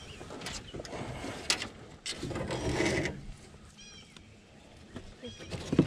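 Clicks and rustling from fishing tackle being handled in a jon boat as a tangled line is worked loose, with a sharp knock at the end.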